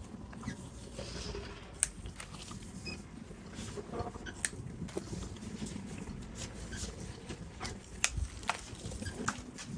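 Small bonsai pruning scissors snipping leaves and shoots off a young privet (ligustrum), a sharp click of the blades every second or two over the rustle of the foliage being handled.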